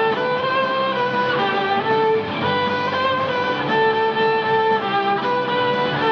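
Violin playing a melody of held notes over a lower accompaniment.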